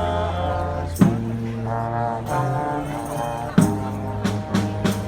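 Street band of horns and drums playing live: sustained brass chords over a low held bass note, with a drum hit about a second in and a quick run of hits near the end.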